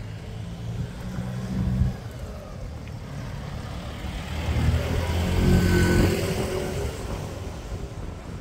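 Street traffic: an engine running close by for the first couple of seconds, then a motor vehicle passing, growing louder to a peak a little past the middle and fading away.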